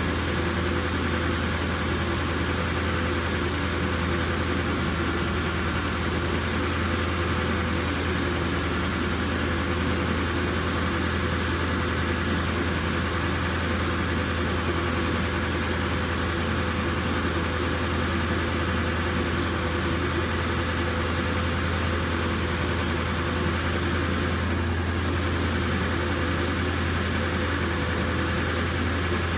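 Ford 4.6 L V8 idling steadily, with a steady high-pitched whine over the low engine hum. The engine is being run after a water pump replacement to circulate the new coolant and check for leaks.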